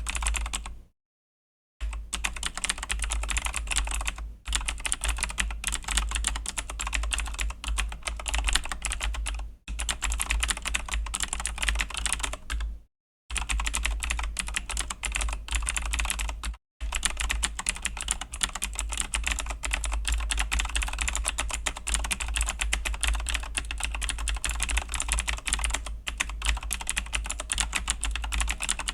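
Fast, steady typing on a Razer BlackWidow V3 mechanical keyboard with Razer Green clicky switches: a dense stream of sharp key clicks, broken by a few brief pauses, one just after the start.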